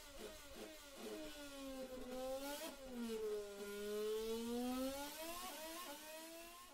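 Mercedes-AMG 2014 Formula One 1.6-litre turbocharged V6 development engine revving. A run of quick blips comes first, then the pitch falls and climbs in slower, deeper sweeps, with two short blips near the end.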